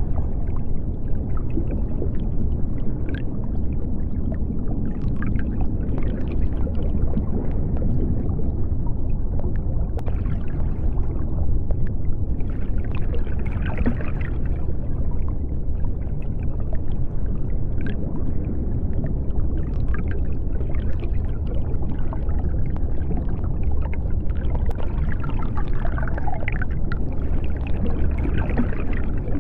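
Underwater sea ambience: a steady deep rumble with faint bubbling and gurgling scattered over it.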